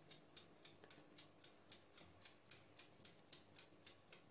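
Faint, regular ticking of about four clicks a second.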